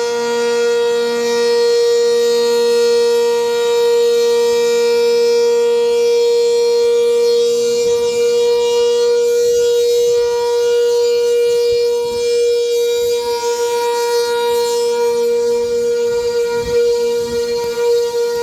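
Sentry 10V outdoor warning siren sounding a steady tone at full speed during a test.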